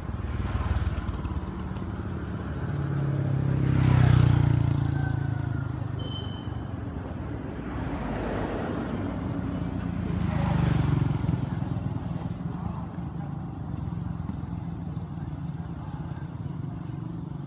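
Motor vehicles passing on the road: a steady engine and tyre rumble swells as one goes by about four seconds in, and again as another passes around eleven seconds in.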